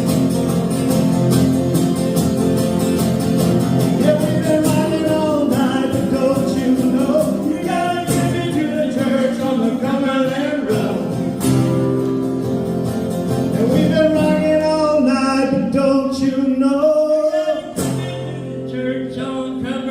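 Acoustic guitar strumming behind male singing in a live country song. About eighteen seconds in the singing stops and the guitar carries on more softly.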